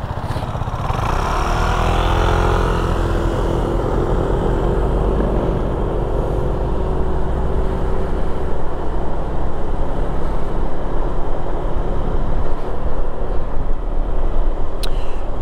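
2015 Honda PCX150 scooter's single-cylinder engine with its automatic (CVT) drive, pulling away from a stop and then running at a steady cruising speed. The engine note shifts during the first few seconds and then holds steady, with a constant low rumble of wind noise underneath.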